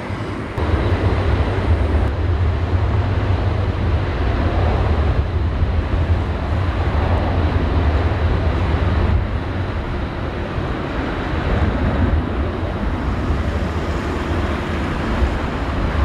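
Boeing 747 freighter turbofan engines at high thrust on the runway: a heavy, steady rumble that comes up sharply about half a second in, as a 747-8F rolls out after touchdown and a 747-400F makes its takeoff roll.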